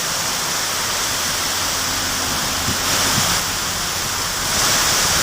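Heavy rain pouring down with strong wind, a steady rushing hiss that swells briefly past halfway and grows louder near the end.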